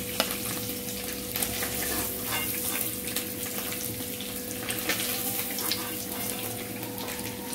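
Hot ghee sizzling and crackling in a steel kadhai where paneer cubes are shallow-frying, with a steady hum underneath.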